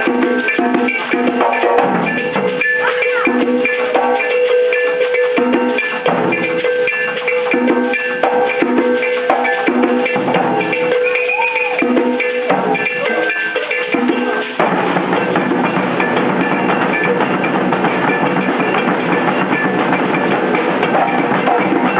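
Maracatu-style percussion ensemble playing drums and hand percussion. For about the first fourteen seconds a steady pitched note rides over the rhythm, then the sound changes abruptly to a denser, fuller wash of drumming.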